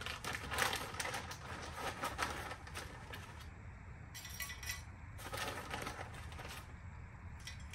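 Dry cherry wood chips rattling and rustling as they are poured from a bag into a Masterbuilt electric smoker's chip loader, in several bursts of light clattering.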